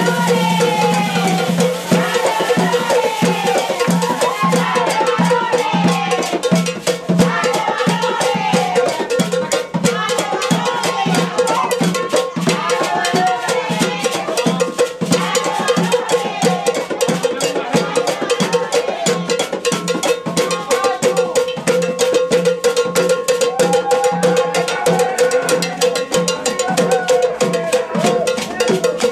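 Brazilian carnival samba percussion playing a fast, steady beat, with voices of a dancing crowd over it.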